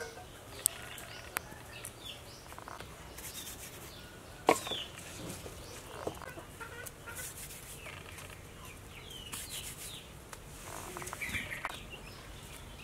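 Chickens clucking and small birds chirping in short calls, with a few sharp clicks; the loudest click comes about four and a half seconds in.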